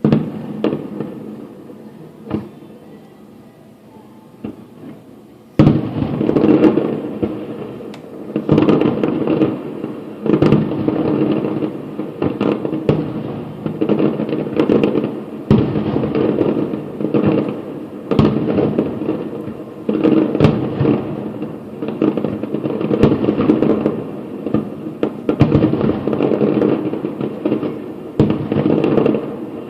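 Aerial fireworks going off: a few separate bangs, then from about five and a half seconds in a dense, unbroken barrage of overlapping booms and crackles.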